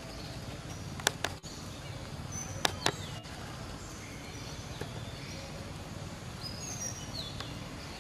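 Outdoor ambience: a steady background hiss with a few sharp clicks about one and three seconds in, and faint, short, high chirps, some falling in pitch, later on.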